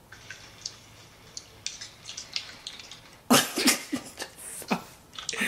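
Faint, irregular crunching and crackling of someone eating chips close to the microphone in ASMR style, heard through a video-chat app. A little over three seconds in, a person breaks into a few loud bursts of laughter.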